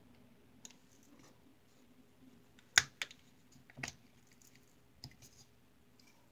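Scattered sharp clicks and taps of small objects being handled on a tabletop, the loudest about three seconds in, with more near four and five seconds, over a faint low hum.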